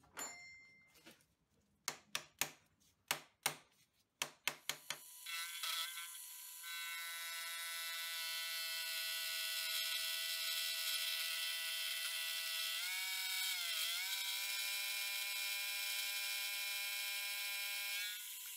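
A run of sharp knocks in the first few seconds, then a milling machine's spindle running with a steady whine as a fly cutter faces a steel block held in the vise. The pitch dips briefly near the middle before settling again.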